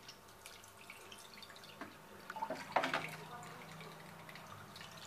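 Fermented black-grape wine and pulp splashing and dripping as it is poured from a jar and ladle onto a cotton straining cloth. The splashing is loudest for about a second near the middle.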